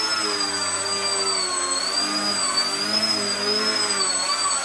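Battery-electric motor and propeller of a small indoor 3D RC airplane hovering, a steady whine whose pitch rises and falls slowly.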